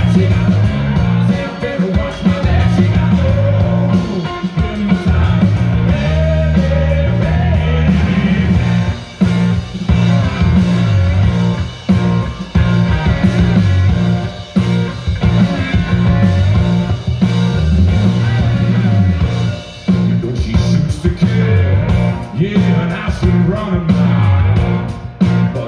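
Live rock band music: a hollow-body electric guitar played over a drum kit, loud and heavy in the low end.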